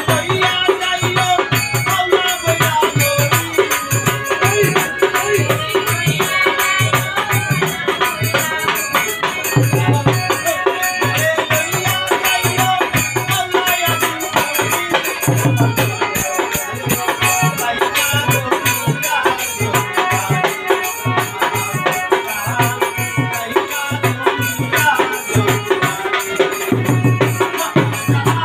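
Live Bengali Baul folk music: a man singing, accompanied by harmonium, hand drum and rattling hand percussion keeping a steady rhythm.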